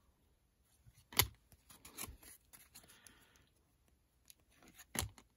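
Glossy chrome trading cards being flipped through by hand: faint sliding and ticking of card against card, with two sharp card snaps, about a second in and near the end.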